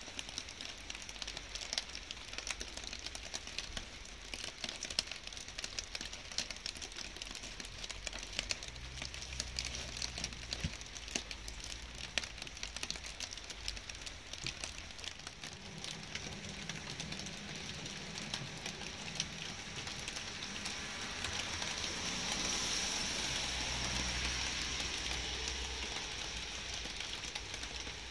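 Light rain falling, an even hiss with many close drops ticking. A low rumble comes and goes twice, and the hiss swells and fades about three quarters of the way through.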